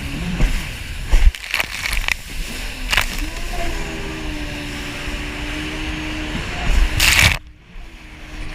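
Jet ski engine running, its pitch rising and then holding steady, under heavy wind noise and the slap of the hull and spray on the water. Near the end comes a loud splash, after which the sound drops away suddenly.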